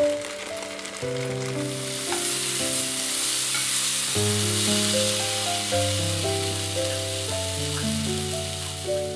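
Banana pieces sizzling as they fry in a frying pan, the sizzle swelling about two seconds in, under background music of held notes.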